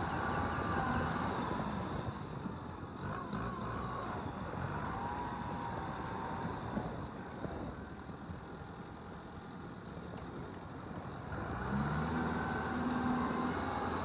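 Kubota M6240SUH tractor's diesel engine running under load while ploughing a flooded paddy field. It drops a little in level around the middle, then gets louder and rises slightly in pitch about twelve seconds in.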